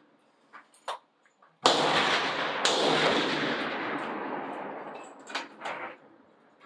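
Two benchrest rifle shots about a second apart from the covered firing line. Their report rolls on and fades over some three seconds, with a few light clicks before and after.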